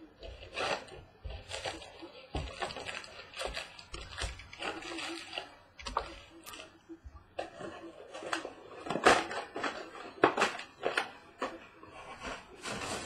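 Trading-card packaging being handled and torn open: irregular crinkling, rustling and light taps of foil wrappers, cardboard and cards.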